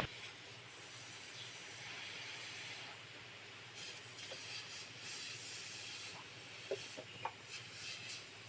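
Faint steady hiss of pressurised gas blowing flushing fluid back out through a refrigerator's capillary tube.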